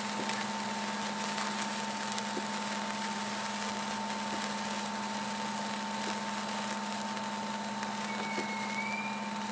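Several handheld sparklers burning: a steady fizzing hiss with small scattered crackles, over a steady low hum. A short, faint whistle-like glide comes in near the end.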